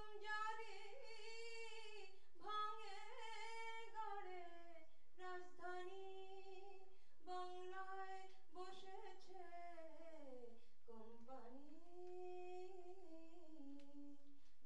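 A woman singing solo, unaccompanied, into a handheld microphone: long held notes in phrases with short breaks, bending in pitch, with a long falling slide about ten seconds in.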